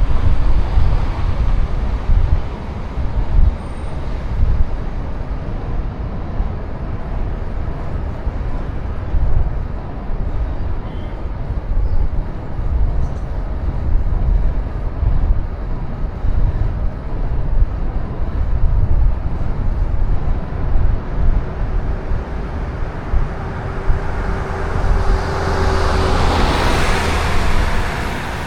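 Wind buffeting the microphone and road rumble while riding a bicycle, steady with gusty swells. Near the end a motor vehicle approaches and passes, its hiss swelling and fading.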